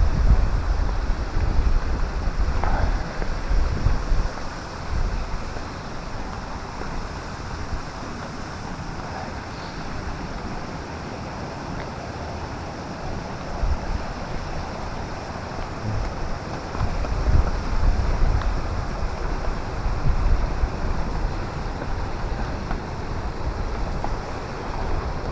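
Wind buffeting the microphone in gusts, loudest in the first few seconds and again about two-thirds of the way through, over a steady rush of flowing canal water.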